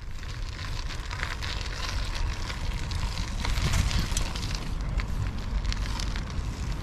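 Wind buffeting the microphone of a handlebar-mounted action camera as a bicycle rolls along a paved path, a steady low rumble with many small crackles and clicks from the ride.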